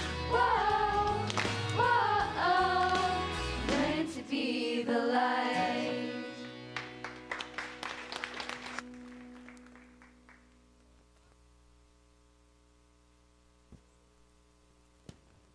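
A song with voices and instrumental backing ends about four seconds in. The last held chord fades away over the next several seconds, with a scatter of short sharp sounds, leaving only quiet room tone and a couple of faint clicks near the end.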